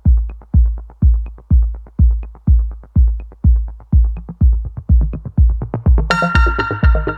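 Electronic background music: a deep kick drum on every beat, about two a second, with a bright synth chord coming in near the end.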